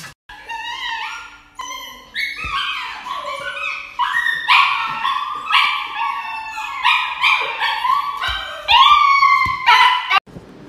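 A dog crying out in a long run of high, yelping howls, most of them rising in pitch, in distress while held for an injection. The cries grow louder about four seconds in and stop abruptly near the end.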